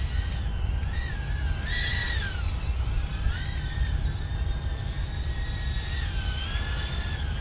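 Small brushless motors of a BetaFPV Nebula 85x whoop running on 4S, a high whine whose pitch rises and falls with the throttle as the drone flies about. A low steady rumble runs underneath.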